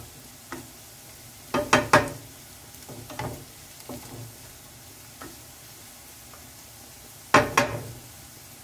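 Wooden spatula stirring and scraping sliced onion and diced carrot in a nonstick frying pan, over a steady sizzle of frying on high heat. The knocks and scrapes come in clusters, loudest about two seconds in and near the end.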